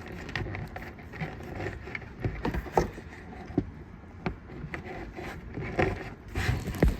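Handling noise of power and antenna cords being tucked behind a desktop weather radio: scraping and rubbing with a string of light knocks and clicks.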